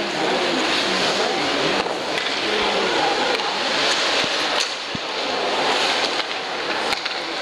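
Arena crowd noise during an ice hockey game: a steady din of many voices, with a sharp knock about five seconds in.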